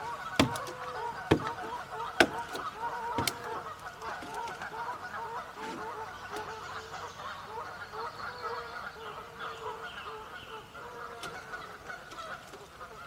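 A flock of Canada geese honking and calling continuously, many short calls overlapping. Several sharp clicks stand out in the first few seconds.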